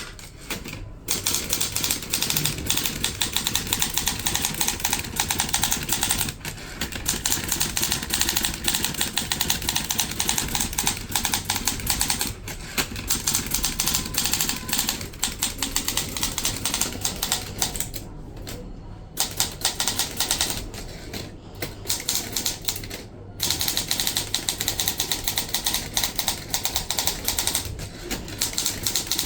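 Olivetti Lettera DL manual typewriter typed at high speed: a rapid, continuous clatter of keys and type slugs striking, broken by brief pauses every few seconds.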